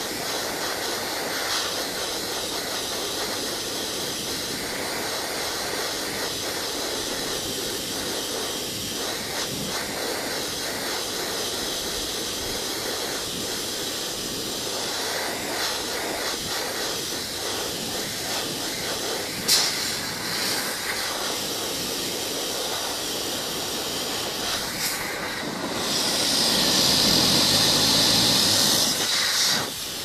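Hose-type pet dryer blowing a steady hiss of air onto a cat's fur. It gets louder for about three seconds near the end, and there is one sharp click about two-thirds of the way through.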